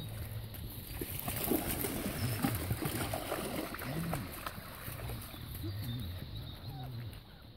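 Several dogs rushing into shallow pond water and splashing as they wade and start to swim.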